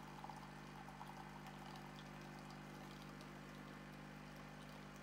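Miele CM 7750 bean-to-cup coffee machine's pump running with a steady, faint hum as it dispenses an Americano into a glass.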